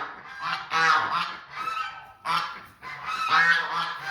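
Geese honking loudly and repeatedly, several calls overlapping in quick succession.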